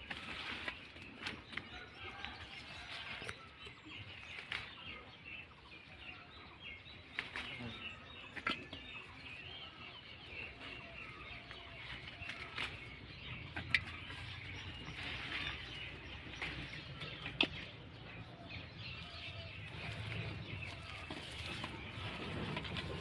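Small birds chirping steadily, with light rustling of bean vines and a few sharp clicks as pods are snapped off by hand and dropped into a metal basin.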